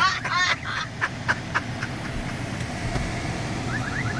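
Hidden electronic alarm under the hood sounding a rapid 'woo, woo, woo' warble, about four per second, that cuts off about half a second in. A low steady rumble follows, with a few faint short chirps near the end.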